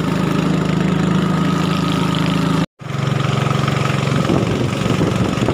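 Small longtail outboard engine of a ketinting river longboat running steadily at cruising speed, a constant hum, with water rushing along the hull. The sound cuts out for a moment near the middle, then resumes.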